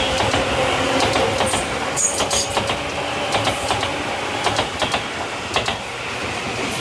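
Tobu Railway train running through the closed level crossing, its wheels clacking irregularly over the rail joints over a steady running rumble, while the crossing's warning bell rings.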